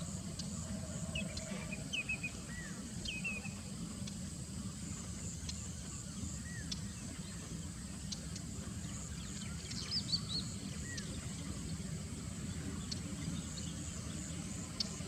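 Small birds chirping now and then, with short arched notes and quick trills and a cluster of higher chirps about ten seconds in, over a steady low rumble of outdoor background noise.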